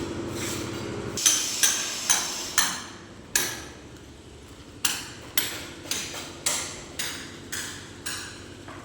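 About a dozen sharp hammer blows, spaced unevenly at first and then about two a second. A steady engine hum runs underneath at the start and cuts off about a second in.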